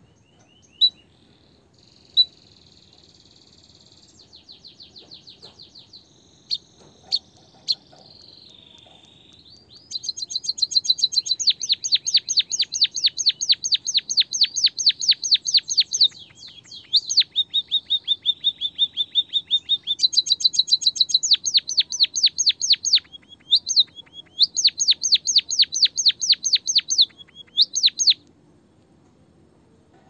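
Small songbird singing: a few scattered high chirps, then, from about ten seconds in, long fast trills of evenly repeated high notes in several phrases with short breaks, stopping shortly before the end.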